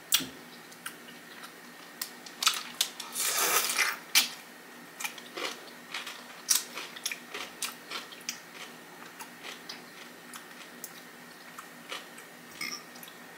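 A Jimmy John's dill pickle spear being bitten and chewed close to the mouth: a crunchy bite, loudest about three seconds in, then irregular crunching and wet chewing clicks.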